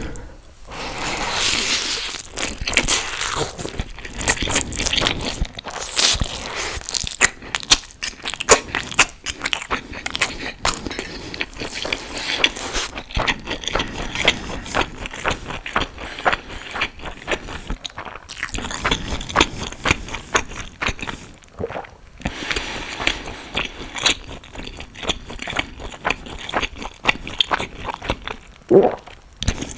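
Close-miked eating sounds: a person biting and chewing crunchy food, a dense run of crisp crackles broken by a few short pauses.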